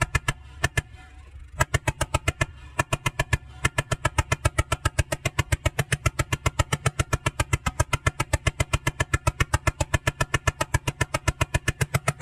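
Homemade full-auto pellet machine gun firing: a few quick shots, a gap of about a second, then a long unbroken burst of about six or seven shots a second over a steady low hum.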